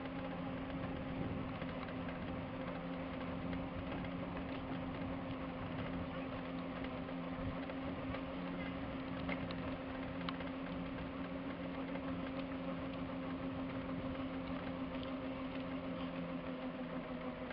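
Electric mobility scooter running steadily along a paved path: a constant motor hum over the rolling noise of its wheels, with a few small rattles and clicks.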